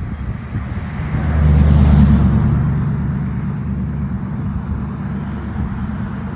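A motor vehicle passing close by: engine and road noise build over the first second or two, peak at about two seconds in, then ease off to a steady lower rumble.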